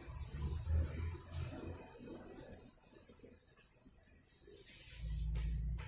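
Cloth wiping a chalkboard, rubbing off chalk writing in uneven back-and-forth strokes, strongest in the first couple of seconds.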